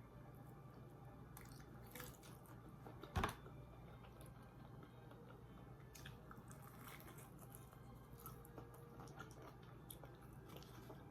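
Someone biting and chewing crunchy food close to the microphone: scattered crisp crunches, with one sharp loud bite about three seconds in.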